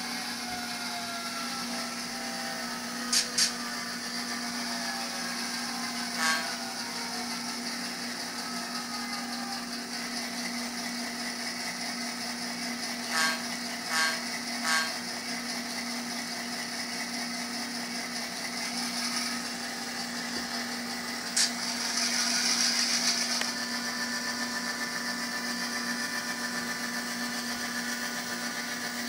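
Soundtraxx Tsunami Micro sound decoder in an N scale F7 diesel locomotive playing diesel engine sound through its tiny speaker, with the model's motor and gears running beneath. The engine sound drops in pitch in the first few seconds, and short blasts sound twice near the start, once a few seconds later, three times in quick succession around the middle and once more later, followed by a brief hiss.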